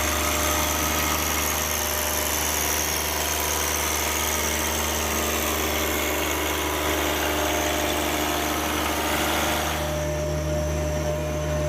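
Small tractor's engine running steadily. About ten seconds in, the high hiss falls away while the low engine note continues.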